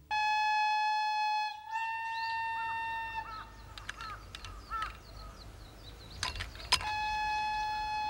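Two long, steady, flute-like notes, the second a little higher, sounded twice, with small birds chirping in between. Two sharp clicks come just before the notes return.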